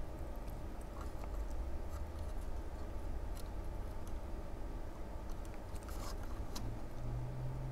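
Faint small clicks and scratches of a resistor's wire leads being bent and pushed into the resistor holes on a PIR motion detector's circuit board, a few clicks close together near the end, over a steady low hum.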